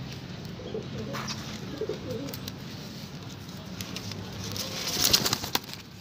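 Domestic fancy pigeons cooing softly over a steady low background hum, with a brief louder rustle about five seconds in.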